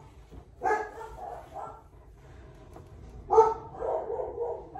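A dog barking in two bouts, about a second in and again past three seconds, each loud bark followed by a few shorter, weaker ones.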